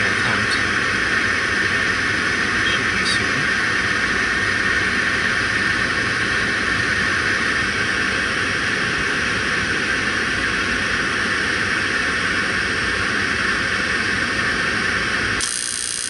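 Rheem rooftop gas heating unit running during an ignition attempt, its inducer motor giving a loud steady high-pitched whine. The unit's gas valve is suspected of opening too slowly for the flame to carry across the burners to the flame sensor. The whine stops abruptly just before the end.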